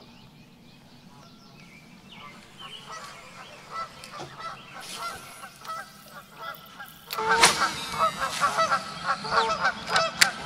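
Geese honking, faint at first, then many loud, rapid, overlapping honks from about seven seconds in.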